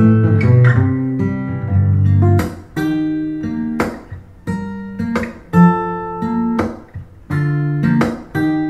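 Recorded acoustic guitar music played back through the Sound Town CARPO-V415SPW system, a pair of passive column array speakers over a 15-inch powered subwoofer, as a sound test. Guitar chords are struck about once a second, each ringing out before the next.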